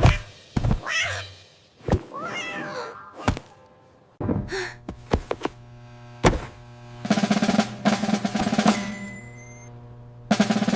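Cartoon sound effects: a string of thuds and knocks with short cat meows in between, then music with steady tones for the last few seconds.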